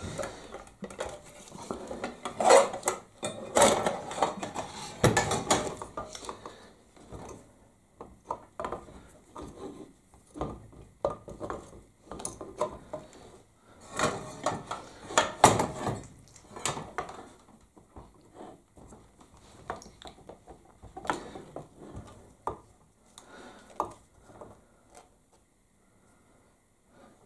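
Irregular clinks, clatters and knocks as the parts of a dismantled bench grinder motor are handled and set down on a workbench: the housing castings, the end shields and the shaft with its bearing.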